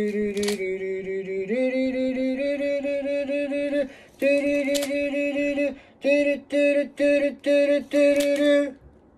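A voice singing a wordless tune in steady held notes that step up in pitch, then five short, evenly spaced repeated notes before it stops, with a few sharp clicks along the way.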